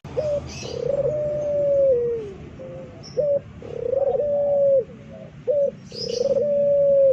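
Puter pelung, a ringneck dove bred for its voice, giving loud, long howling coos three times, each held steady and then dropping at the end, with short clipped notes in between.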